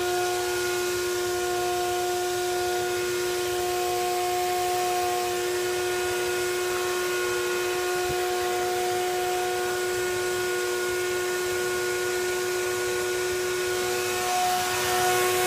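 Wet/dry shop vacuum motor running steadily with a high whine over a rushing hiss, sucking liquid out of a windshield washer reservoir through a thin line duct-taped into its hose. Near the end the sound gets a little louder and the whine shifts slightly.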